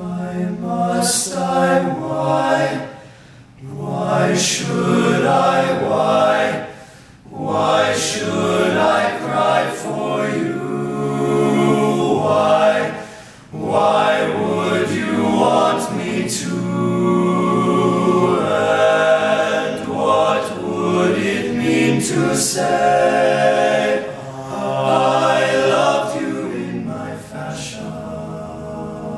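An all-male a cappella group singing in close harmony, voices only, in phrases with brief breaks between them.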